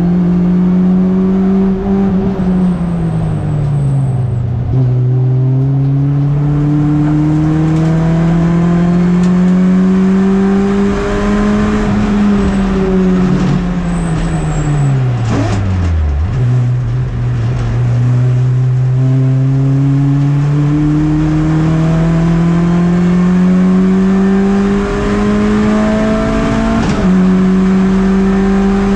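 Onboard sound of a MINI race car's engine under racing load. The note climbs slowly through long pulls in gear and falls steeply twice as the car brakes and drops through the gears: briefly a few seconds in, and deepest about halfway through. It then climbs again, with a quick shift near the end.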